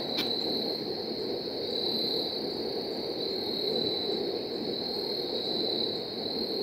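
Evening insect chorus: one continuous high-pitched trill that swells and fades a little, over a steady low background noise.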